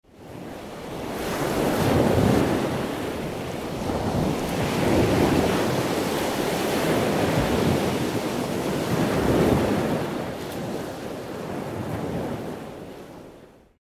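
Ocean surf: waves washing in and drawing back in slow swells every few seconds. It fades in at the start and fades out near the end.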